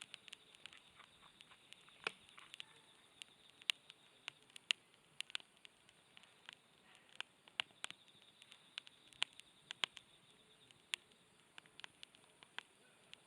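Wood campfire crackling, with irregular sharp pops and snaps several times a second over a faint hiss.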